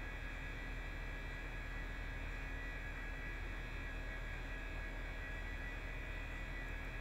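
Steady, unchanging room hum: a low electrical-sounding hum with a faint high whine over it.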